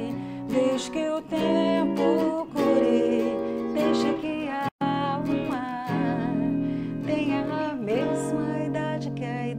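A woman singing, accompanied by an acoustic guitar and an electric guitar. The sound cuts out for a split second about halfway through.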